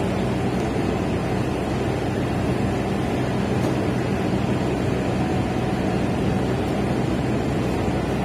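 Steady rumble and hiss of a moving passenger train, with a low hum underneath.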